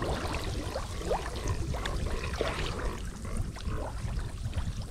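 Shallow water splashing and trickling in many small, irregular splashes and drips, over a steady low rumble.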